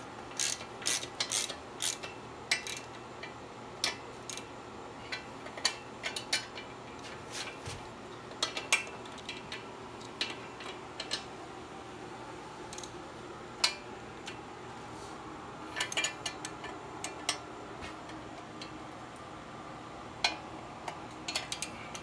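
Hand socket ratchet clicking in short runs with pauses, turning down the lower mounting bolt of a motorcycle air shock.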